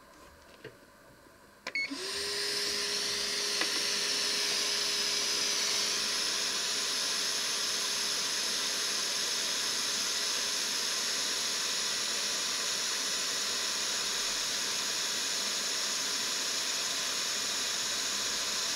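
Hakko FR-810B hot air rework station starting with a click about two seconds in: its internal compressor and blower come on, a steady hum that rises briefly in pitch as the motor spins up, under a steady hiss of air from the handpiece. It then runs evenly while the heater brings the air quickly up to temperature.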